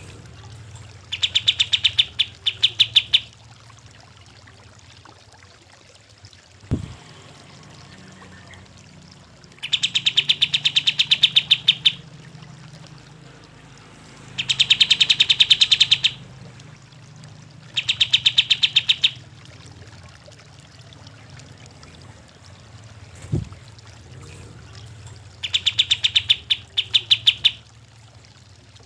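Kapas tembak song: five bursts of fast, rattling repeated notes, each one to two seconds long, with pauses of several seconds between them. A steady low hum runs underneath, and there are two faint knocks.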